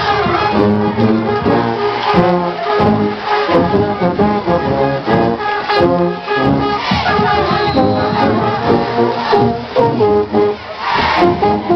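High school marching band playing a brass-led tune from the stands, with trombones and trumpets carrying the melody over percussion.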